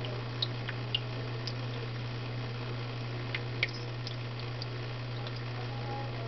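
A steady low hum over a constant hiss, with a few faint sharp clicks.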